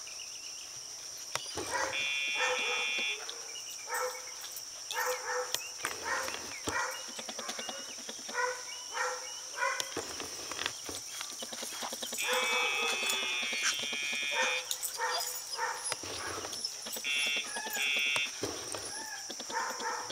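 Animal calls repeating roughly once a second, with a few longer, higher calls, over a steady high-pitched whine.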